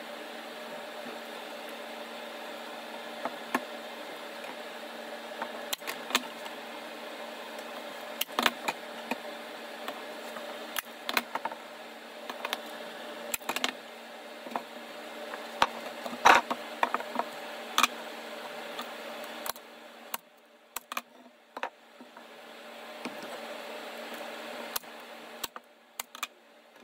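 Screen mesh and wooden frame parts being handled on a workbench: scattered clicks and knocks over a steady hum that drops out for a few seconds past the middle. Near the end comes a pair of sharp snaps from a manual staple gun fixing the mesh to the frame.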